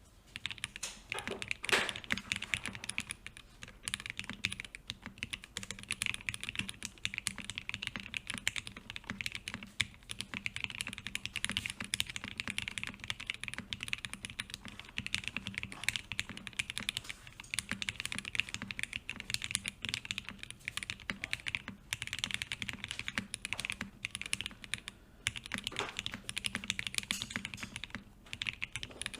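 Continuous typing on a custom mechanical keyboard: a gasket-mounted Peac Design PLX with no foam, an FR4 plate, lubed Gateron CJ linear switches and EPBT keycaps. Dense run of keystrokes with a few brief pauses and one louder stroke about two seconds in.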